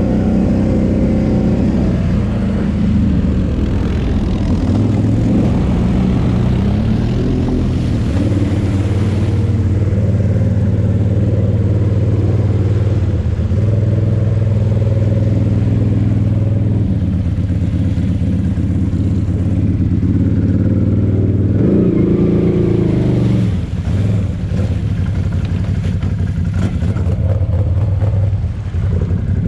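Can-Am Renegade 800 quad's V-twin engine running under load as it ploughs through a muddy pond, its note rising and falling with the throttle, with a clear rev a little past two-thirds of the way through. Water rushes and splashes around the machine under the engine.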